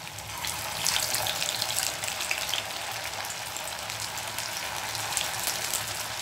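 Potato vadas sizzling and crackling in hot oil in a frying pan. The sizzling gets louder about a second in, as another vada is slipped into the oil.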